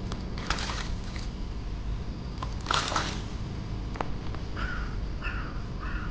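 Fish splashing and swirling at the surface of a pond as they feed, twice in the first three seconds, with a few sharp ticks. A bird calls a few short times near the end.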